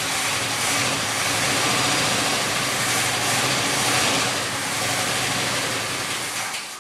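Freshly restored 1966 Ford F100's 352 cubic-inch FE V8 running steadily with the hood open.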